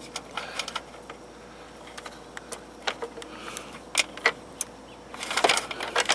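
Irregular small clicks and rattles of wire leads and plastic connectors being handled at a homemade solar panel's junction box, with a denser run of clicks about five seconds in.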